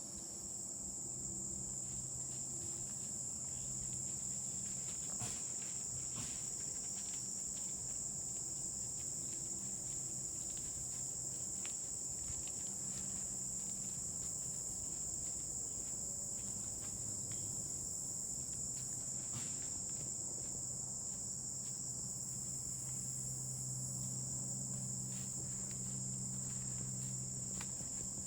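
Steady high-pitched insect chorus, a continuous evening trilling of crickets or katydids, over a faint low steady hum and a few soft ticks.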